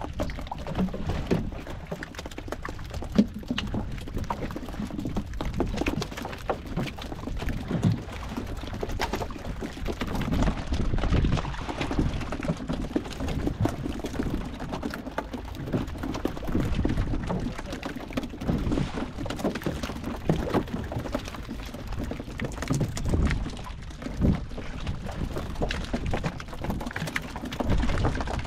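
Seawater sloshing and slapping against the hull of a small fishing boat, with a low rumble and scattered knocks and pattering as fresh-caught mackerel and scad are taken off a hand line into a plastic basket.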